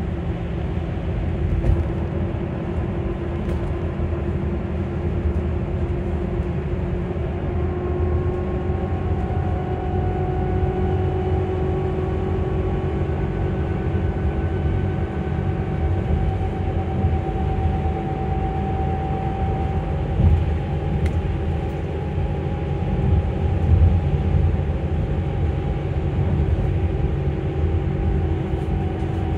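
Electric bus traction motor whining in the cabin over a steady low road rumble. The whine holds several pitches at once, rising slightly about a third of the way in and then staying fairly steady.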